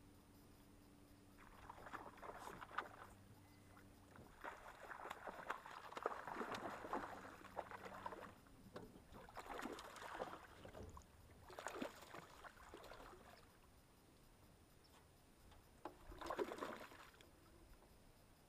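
Bass splashing and thrashing at the water's surface, hooked on a jigger pole's short line beside the boat. The splashing comes in repeated bursts: a long one in the first half, then shorter ones about ten, twelve and sixteen seconds in.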